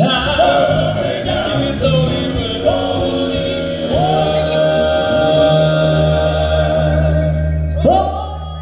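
Southern gospel male quartet singing in close harmony with a live band, coming in loud all at once and holding long notes over a steady bass line. Near the end a voice sweeps up to a high held note.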